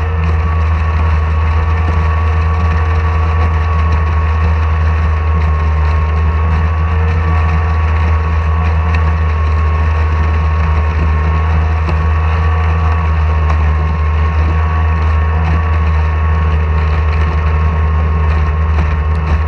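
Outboard motor of a stock outboard racing hydroplane running steadily at low speed, heard close up from the boat's own deck: a loud, even low hum with a thin steady whine above it.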